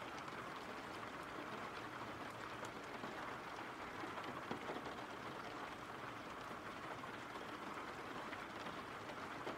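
Steady rain: a soft, even hiss of falling rain with a faint patter of drops.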